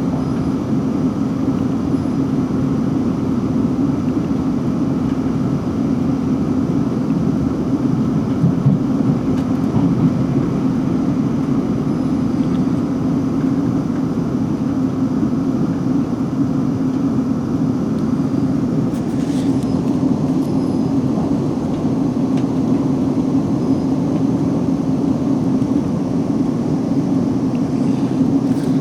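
Steady low rumble inside a Class 458 electric multiple unit running along the line, with a few faint clicks partway through.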